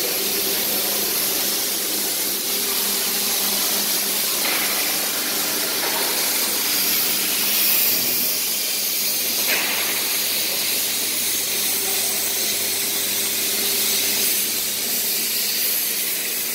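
Silicone rubber extrusion and curing line running: a steady hiss with a faint hum underneath, and two faint knocks about four and a half and nine and a half seconds in.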